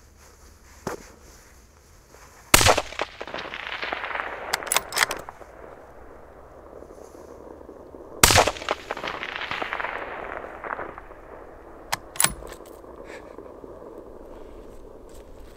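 Three rifle shots from a Browning X-Bolt bolt-action rifle in 6.5 Creedmoor, about six seconds and then four seconds apart, the first the loudest. The first two each trail off in a long rolling echo lasting a couple of seconds.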